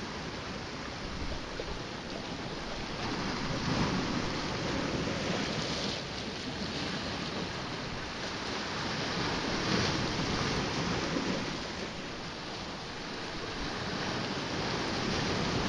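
Sea waves washing against shoreline rocks: a steady rush of water that swells louder about every five or six seconds.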